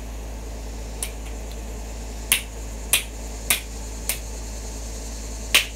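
Six sharp cracks at uneven intervals, from a fishing rod being broken up at ground level; the last one is among the loudest.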